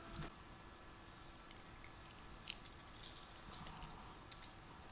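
Faint squishing of a lemon wedge being squeezed by hand, with a few light ticks.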